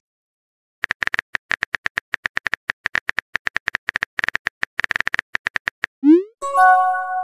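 Texting-app typing sound effect: a fast, uneven run of short keyboard clicks lasting about five seconds. Near the end comes a rising whoop and then a short chime, the message-sent sound.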